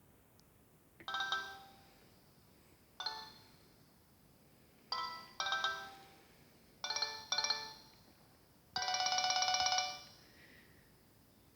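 Nokia 6070 mobile phone ringtone playing: a short electronic melody of separate bell-like notes, some in quick pairs, followed about three-quarters of the way in by a longer trilling note, with pauses between the phrases.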